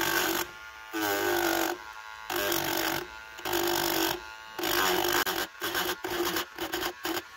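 Handheld rotary tool with a sanding drum grinding the metal body shell of a scale model Porsche 356B. The small motor's whine comes in bursts of under a second, about one a second, and the bursts grow shorter and quicker near the end.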